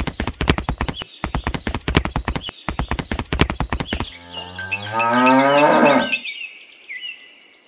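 Rapid clip-clop of hoofbeats for about four seconds, then a single long cow moo whose pitch rises toward its end.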